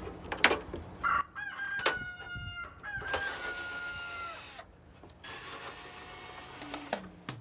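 A rooster crowing once: a long call with a held note that drops off at the end. A few sharp clicks sound near the start.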